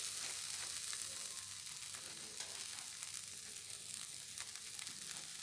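Food sizzling steadily on a hot flat iron griddle (tawa): a faint, even hiss with many small crackles and pops.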